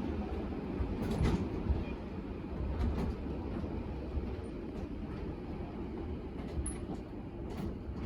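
Typhoon wind, a steady low rumble, with a few faint knocks.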